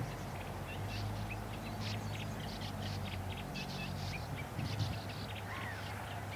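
A sand martin colony twittering: many short, quick chirps in close succession, over a low steady hum that drops away about four seconds in.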